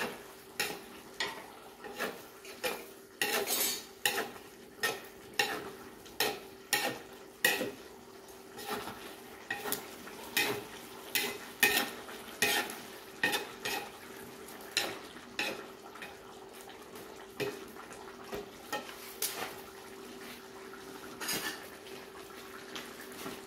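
Metal skimmer scraping and knocking against the side of a kazan as steamed plov rice is gathered into a dome, about one to two strokes a second, stopping near the end. A steady low hum runs underneath.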